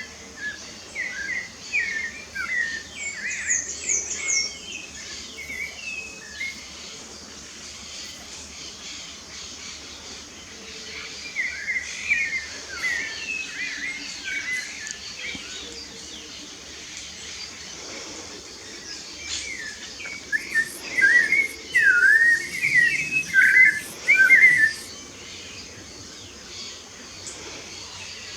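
Songbirds singing in bouts of quick, varied chirping phrases, three bouts with the loudest near the end, over a steady background hiss.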